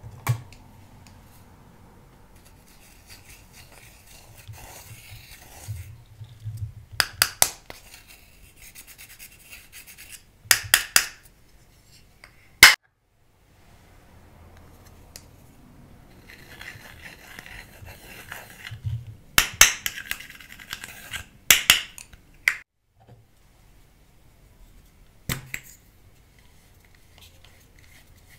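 Pressed eyeshadow being scraped and crumbled out of its plastic compact into a glass dish: soft, dry scratching and crumbling, broken by a few sharp clicks and taps of the plastic compact, several in quick clusters.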